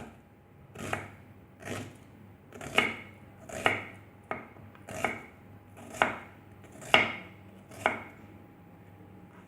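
Knife slicing onions: about nine separate cuts, roughly one a second, stopping a little before the end.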